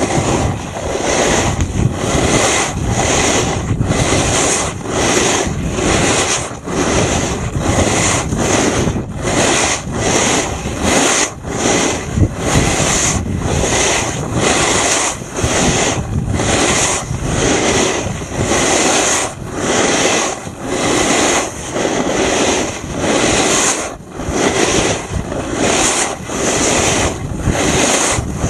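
Steady rushing noise of riding fast downhill on groomed snow: wind over the microphone and the board's edges scraping the snow. It pulses in regular short dips a little faster than once a second.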